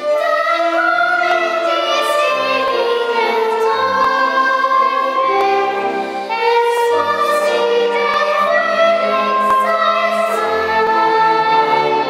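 Children's choir singing sustained melodic lines over instrumental accompaniment with held bass notes.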